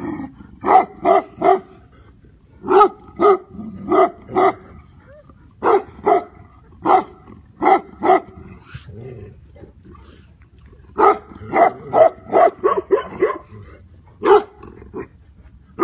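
A Tibetan Mastiff-type guardian dog barking in bursts of three or four barks with short pauses between, then a quicker run of barks near the end.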